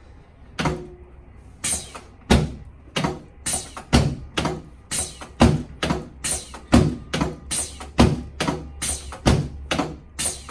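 A steady series of sharp impacts with a thud in each, a little over two a second, from percussive strikes on a patient during a chiropractic adjustment.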